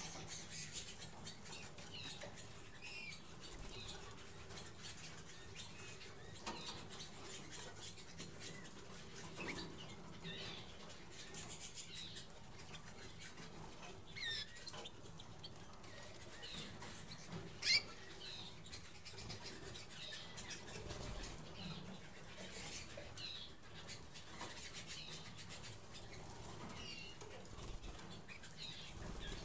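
Harzer Roller canaries fluttering and hopping about a cage, with scattered short chirps and light pecking and rustling. One sharp click stands out about two-thirds of the way through.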